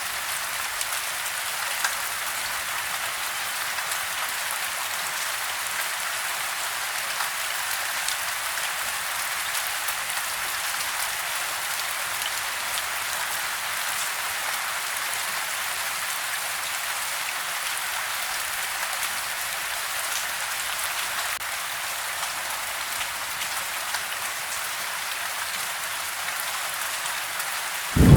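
Steady soft rain heard from indoors: an even patter of drops falling on the house, with scattered single drop ticks. A thunderclap breaks in at the very end.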